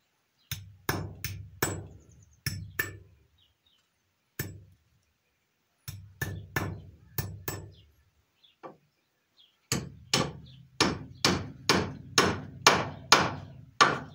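Hammer blows on a nail being driven into a hard wooden timber: short groups of strikes with pauses, then a steady run of about two blows a second near the end. The wood is as hard as iron and the nail will not go in.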